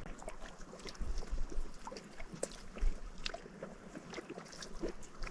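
Small irregular water slaps and light knocks against a small boat's hull, with gusts of wind buffeting the microphone as a low rumble now and then.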